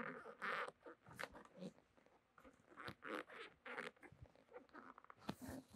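Metal clip nuts being worked onto the edge of a plastic seat shell by hand: a faint, irregular string of short scrapes and clicks.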